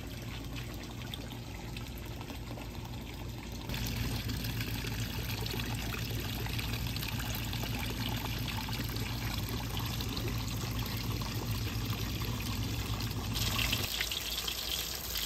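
Water splashing and trickling steadily into a koi pond, louder about four seconds in. Near the end it gives way to butterfish sizzling as it fries in a pot of hot oil.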